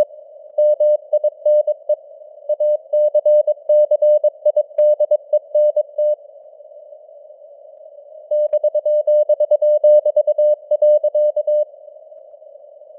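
Morse code (CW) at 22 words per minute, sent as a steady beeping tone keyed in dots and dashes over a narrow band of simulated radio hiss. The keying pauses for about two seconds midway, resumes for about three seconds, then stops, leaving only the hiss.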